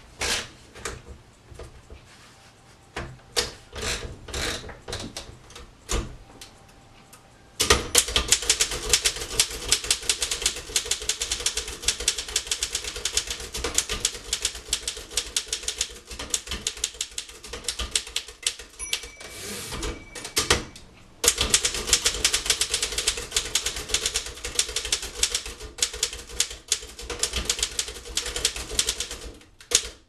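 1913 Royal No. 5 standard manual typewriter: scattered clicks while paper is fed in and the platen turned, then from about eight seconds in rapid typing, the typebars striking many times a second. About twenty seconds in the typing breaks for a short ring of the margin bell and a loud carriage-return clack, then the fast typing resumes.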